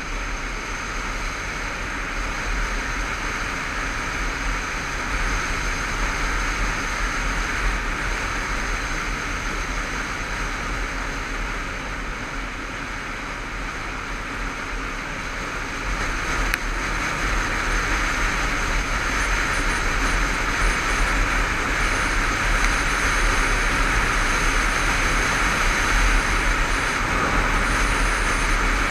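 Honda CBF500 parallel-twin motorcycle riding along at road speed, with wind rushing over the camera microphone and the engine running underneath. It grows louder about halfway through.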